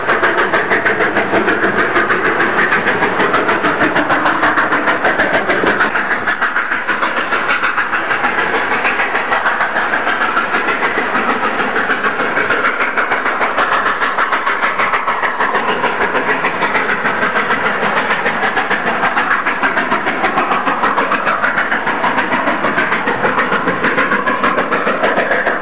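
Narrow-gauge steam locomotive pulling its train, its exhaust chuffing in a quick, even beat. The sound becomes duller about six seconds in.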